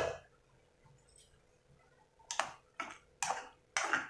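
A spoon scraping and knocking against the pan while stirring boiled macaroni: one short stroke at the start, then four quick strokes in the last two seconds.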